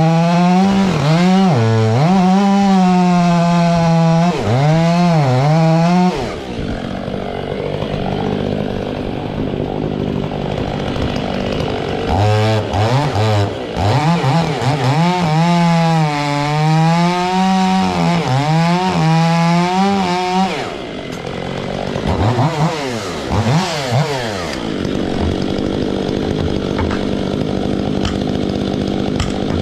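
Stihl MS 500i two-stroke chainsaw cutting wood at high revs, its pitch dipping and recovering again and again as the bar is loaded in the cut. Twice it eases off into quieter stretches, and it revs briefly again near the end.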